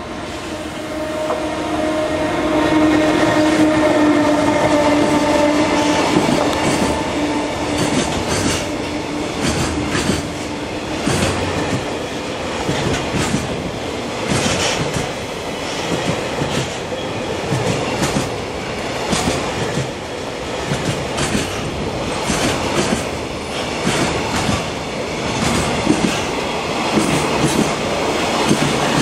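JR Freight EF210 electric locomotive passing with a steady whine that dips a little in pitch as it goes by, then a long container freight train of Koki flatcars rolling past, its wheels clacking rhythmically over the rail joints.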